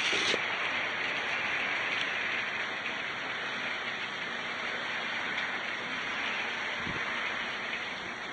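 Steady rain falling in an even hiss. A few knocks right at the start as the camera is set in place, and a brief low thump near the end.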